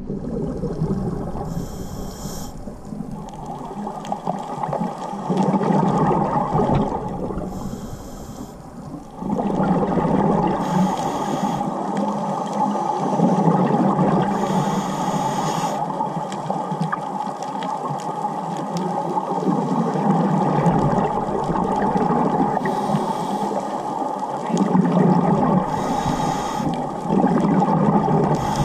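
Scuba diver breathing through a regulator underwater: bubbling exhales with a brief high hiss every few seconds, over a steady muffled water rumble.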